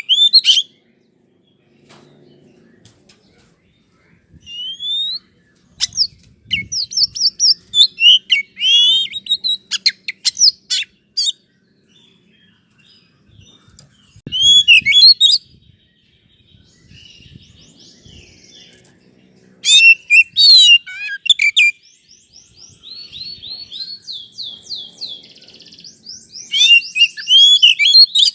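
Oriental magpie-robin (kacer) singing: loud, varied whistled phrases in separate bursts with short pauses between them, and a run of fast repeated notes about two-thirds of the way through.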